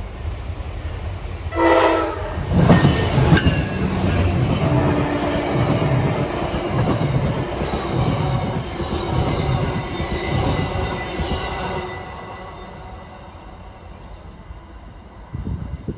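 Passenger train sounding a short horn blast, then passing close by with rumbling wheels and a rhythmic clack over the rail joints. It fades away after about twelve seconds as it moves off.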